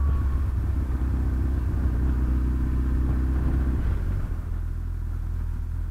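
Motorcycle engine running steadily under way, with wind and road noise; about four seconds in the engine note drops away and quietens as the throttle is rolled off.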